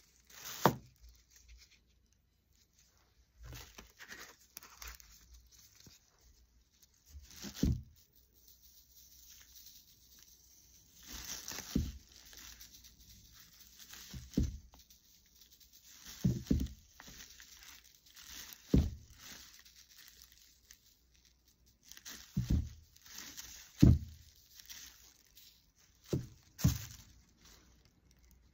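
Hands in nitrile gloves handling craft materials over a plastic drop cloth: crinkling and rustling of the plastic, broken by about ten sharp knocks as objects are set down or tapped on the table.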